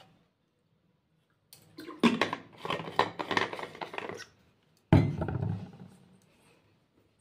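Household objects being handled close by: a couple of seconds of dense clattering and knocking, then one loud thump about five seconds in that dies away over a second or so.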